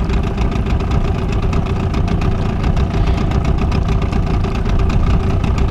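Small outboard motor running steadily at low trolling speed, pushing the boat slowly along.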